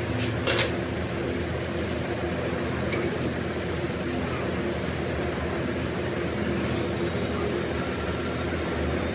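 Workshop machinery running with a steady hum, with a single sharp metallic knock about half a second in.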